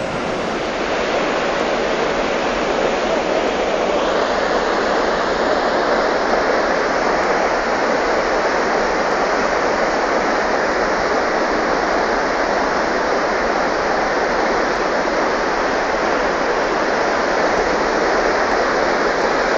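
Fast, muddy floodwater rushing through a swollen river channel close by: a loud, steady rush of turbulent water.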